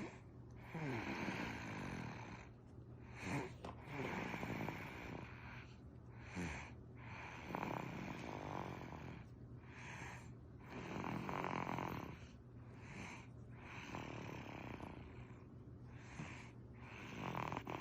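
An eight-month-old baby snoring in deep sleep, a snore with each breath about every two seconds. Some snores slide down in pitch.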